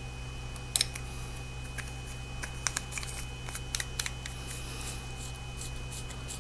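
Brass flashlight being put back together: the cell slid back into the body and the tail cap screwed back on, giving a string of small, irregular metallic clicks and scrapes. The sharpest click comes about a second in.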